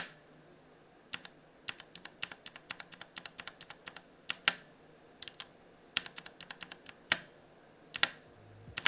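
Keystrokes on a Tecware Spectre Pro mechanical keyboard with Outemu Brown tactile switches: keys pressed singly and in quick irregular runs, some clicks trailing a short echoey ring, the switch 'ping' heard in a quiet room.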